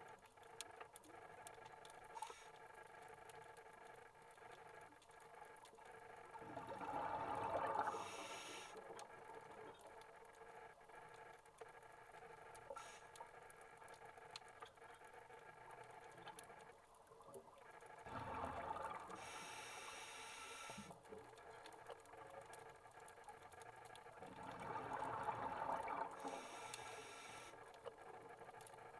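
A scuba diver's regulator breathing, three breaths about ten seconds apart: each a gush of exhaled bubbles followed by a short hiss of breath through the regulator. Underneath is a faint steady hum and a scattered crackle of small clicks.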